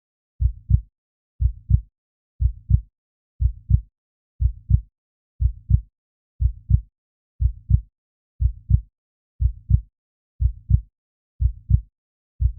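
Heartbeat sound effect: a low double thump, lub-dub, repeating steadily about once a second, with the second beat of each pair the louder.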